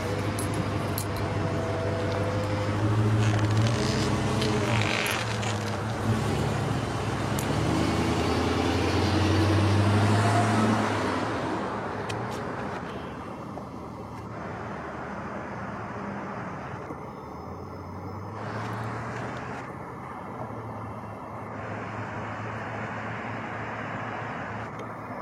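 Car engine and road noise while driving, the engine note rising and falling for about the first ten seconds, then quieter steady road noise.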